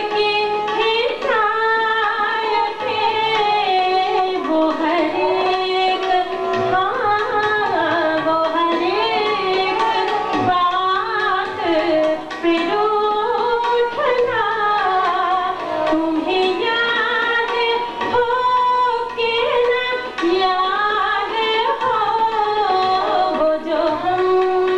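A woman singing a ghazal with long held notes and sliding ornaments, accompanied on harmonium.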